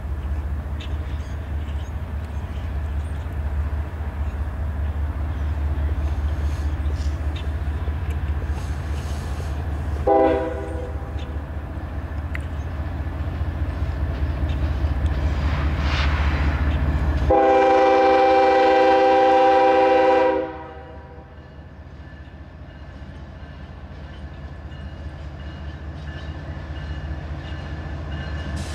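Union Pacific diesel freight locomotives rumbling as they approach and pass, with a short horn toot about ten seconds in and then a long horn blast of several notes sounding together, about three seconds long and the loudest sound.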